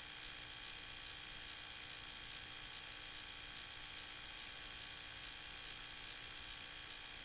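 Steady hiss with a faint constant hum, unchanging throughout, with no distinct sounds such as bubbles or knocks.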